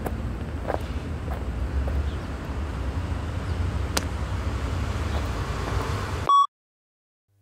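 Steady low outdoor rumble of wind and distant traffic, with one sharp clap about four seconds in: a film clapperboard snapped shut. About six seconds in a short, loud high beep sounds, then everything cuts off suddenly.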